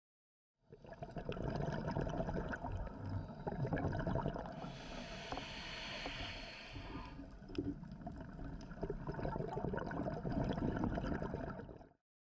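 A scuba diver breathing through a regulator, heard on an underwater camera: rumbling, gurgling exhaled bubbles, with the hiss of an inhale through the regulator for about two seconds near the middle.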